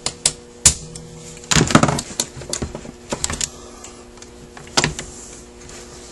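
Irregular sharp metallic clicks, taps and scrapes of hand tools and parts against a Rochester Quadrajet carburetor's body as it is taken apart by hand, with a busier clatter about one and a half seconds in.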